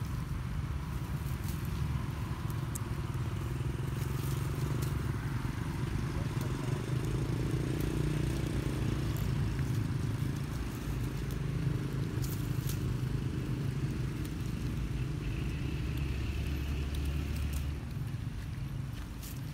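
Low, steady rumble of a motor engine running nearby, swelling and easing over several seconds, with a few faint clicks and rustles.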